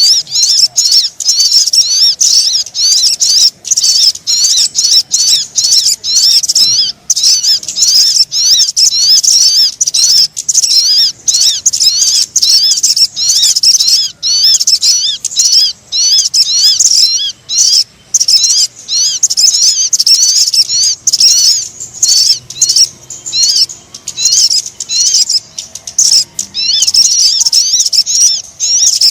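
Bird-lure recording of sogon song: a dense, rapid stream of short, high chirping notes that rise and fall, with brief pauses between phrases.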